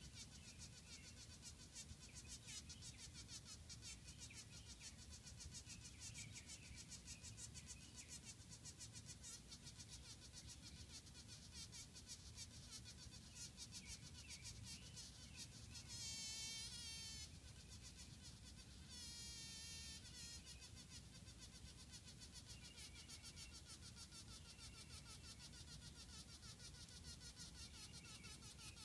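Honey bee buzzing in two short, wavering bursts as it struggles against a spider wrapping it in web, one a little past halfway and another about three seconds later, over faint chirping and crackle.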